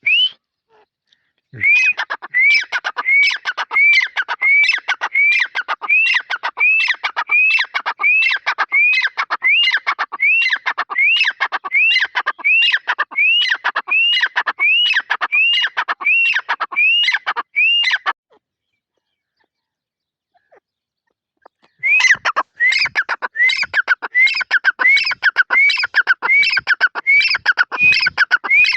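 Francolin (teetar) calling: a long series of loud, high, evenly spaced notes, about two a second. The calls stop for a few seconds past the middle and then start again.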